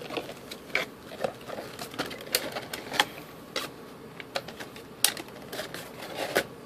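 A cardboard box and a clear plastic packaging tray being handled and pulled apart, giving a run of irregular sharp clicks and crinkles.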